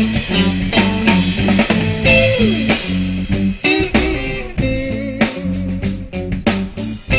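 Live blues band playing an instrumental passage: electric guitar lead over bass guitar and drum kit. About two seconds in, a guitar note slides down in pitch.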